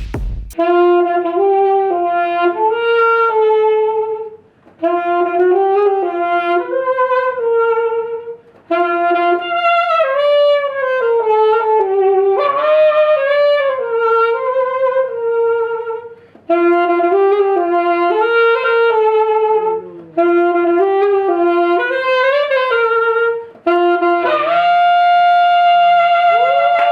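A solo wind instrument, saxophone-like, plays a slow melody in short phrases with brief pauses between them. Near the end it settles on a long held note.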